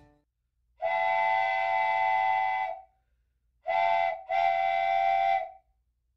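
Steam locomotive whistle sounding three blasts: one long blast, then a short one and a longer one close together. Each blast holds a steady chord of several notes and sags slightly in pitch as it cuts off.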